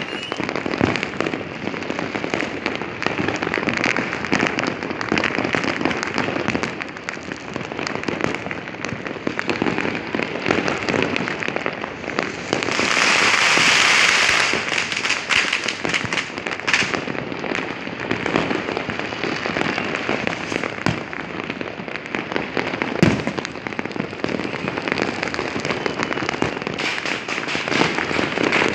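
Fireworks and firecrackers going off all around in a dense, continuous barrage of pops, bangs and crackling. About halfway through comes a louder stretch of hissing crackle, and about three-quarters of the way in one sharp bang stands out as the loudest.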